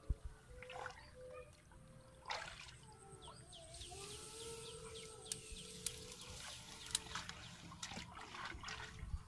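Muddy canal water sloshing and trickling softly around a wading man as he pulls a grass-clogged fishing net and works his hands through the grass of the bank, with a few sharp little clicks.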